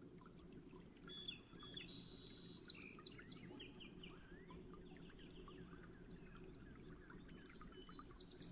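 Faint songbirds chirping and calling: many short, high chirps and quick whistled notes, busiest in the first half, over a low steady hum.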